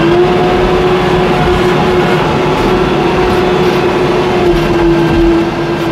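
Case W20E wheel loader's diesel engine running steadily under load as the machine works, heard from the operator's cab, with a steady whine held over the engine that eases slightly near the end.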